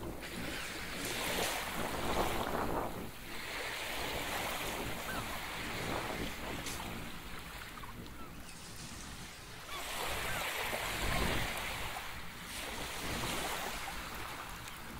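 Waves washing onto a beach in slow swells, loudest about two seconds in and again about eleven seconds in, with wind rumbling on the microphone.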